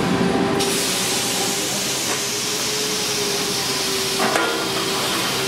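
Semi-automatic PET stretch blow moulding machine running: a loud hiss of compressed air starts suddenly about half a second in and lasts about three and a half seconds over a steady machine hum, followed by a few clicks near the end.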